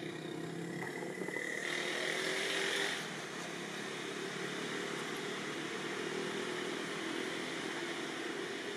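Steady outdoor background noise with a motor-like hum, like distant motor traffic. A brighter hiss swells from about one and a half to three seconds in, then settles back.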